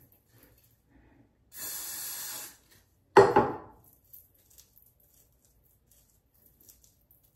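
A steady hiss from an aerosol spray can lasting about a second, then a single sharp knock about half a second later, the loudest sound, dying away quickly.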